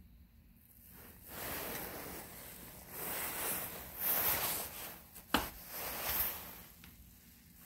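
Rustling and rubbing noise in several swells, with one sharp click about five seconds in: handling noise from a phone being moved around while filming.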